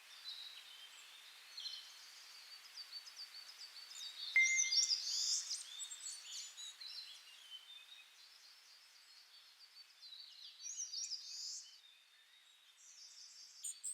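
Small birds chirping and calling over a faint steady outdoor hiss. The calling is loudest and busiest about four to six seconds in, and again around eleven seconds.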